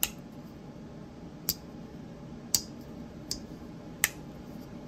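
Jack Wolf Knives K9 Jack slipjoint pocket knife being opened and closed, its blade clicking sharply into place five times, about a second apart. The tangs are freshly oiled after being dry and gritty, and the action now runs smoothly.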